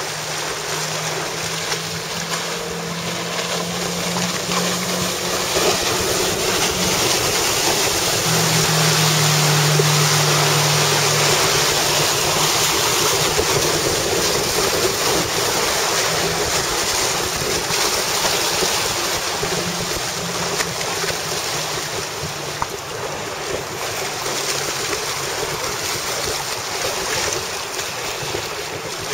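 Wind buffeting the microphone over the rush of water and waves, with a boat's outboard motor humming underneath, coming and going and strongest about a third of the way in.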